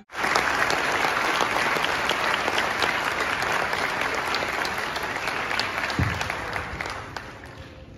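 Audience applauding in a large hall: many hands clapping together. It begins suddenly and fades toward the end.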